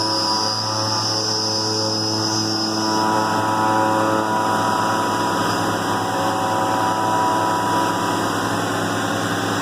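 CNC milling machine's carbide end mill boring the center hole of a milled flange: a steady machining whine with several held tones. A high singing tone from the cutter fades after about three seconds.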